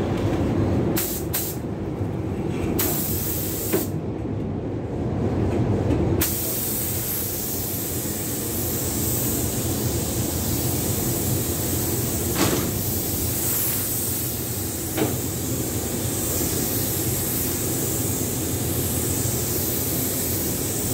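Compressed-air paint spray gun with a gravity-feed cup hissing as it sprays a coat onto a car body: a few short trigger pulls at first, then a continuous hiss from about six seconds in. A steady low rumble of the spray booth's ventilation runs underneath.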